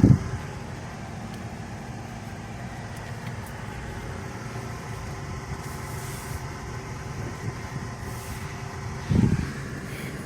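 Steady low hum of a vehicle's engine and fan heard from inside the cab, with faint steady tones over it. A brief low thump about nine seconds in.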